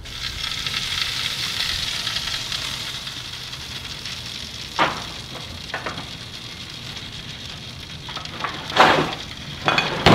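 Fat and juices sizzling on the hot charcoal of an open kamado grill as a smoked chuck roast is lifted off the grate: a steady hiss that fades over several seconds. Then a few sharp clanks and crinkles of a disposable aluminium foil pan and metal meat forks as the roast is set in it, the loudest near the end.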